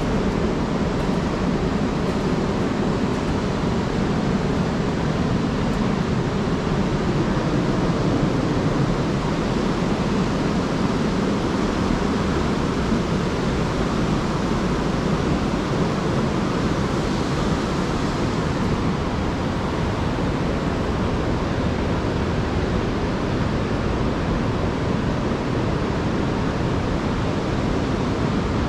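Steady rushing of water pouring over Pulteney Weir on the River Avon.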